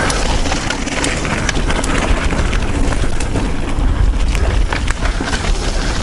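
Mountain bike ridden fast downhill on a dirt trail. A heavy, steady rumble of wind on the camera microphone runs under the tyres on the dirt, with frequent sharp clicks and rattles from the bike.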